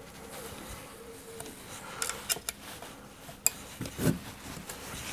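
Small metal parts clicking and clinking against each other, a handful of separate sharp clicks and one duller knock about four seconds in, as a metal bucking spike is fitted to a chainsaw body.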